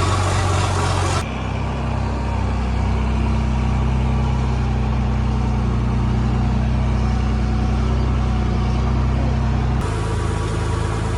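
Oliver farm tractor engine running at a steady speed, its tone changing abruptly about a second in and again near the end.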